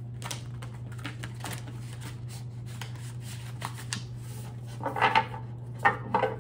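Tarot cards being handled and shuffled: a run of light, irregular clicks and rustles, with a few sharper ones near the end, over a steady low electrical hum.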